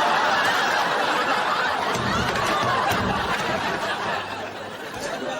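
Studio audience laughing, a sustained wave of laughter that eases slightly near the end.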